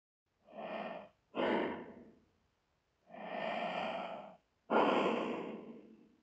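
A person breathing hard: four heavy breaths, two short ones followed by two longer, drawn-out ones, the second and fourth starting more sharply and louder.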